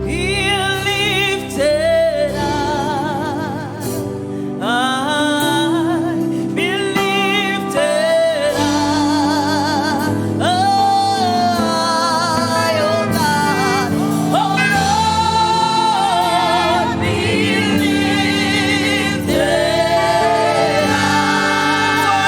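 Gospel praise and worship song: sung melody with wide vibrato over a steady, sustained instrumental accompaniment.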